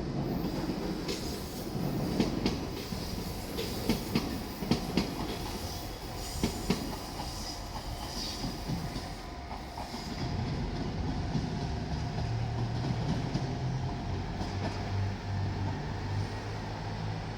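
JR Shikoku 2700 series limited-express diesel multiple unit passing close by, its wheels clacking sharply over the rail joints in the first half. A steady low diesel engine hum takes over from about halfway through.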